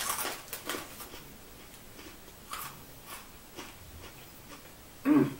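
Close-up chewing of Cheetos Crunchy: sharp crunches in the first second, then fainter, scattered crunches as she keeps chewing. A short, loud vocal sound near the end is the loudest thing.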